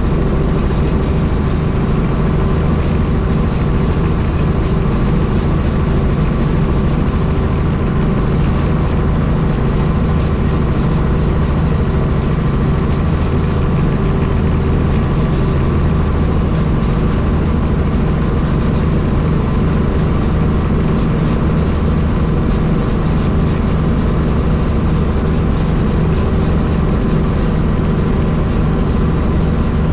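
Helicopter in flight: the rotor and engine run steadily, with an unchanging low throb under a constant rushing noise.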